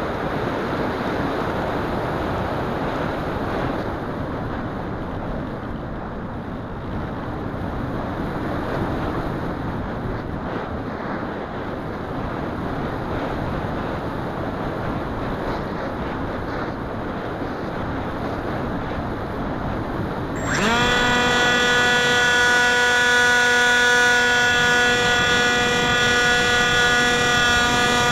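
Wind rushing over the keychain camera's microphone on board a Wing Wing Z-84 flying wing, with no motor tone. About twenty seconds in, the electric motor and propeller come in suddenly with a steady high-pitched whine, louder than the wind.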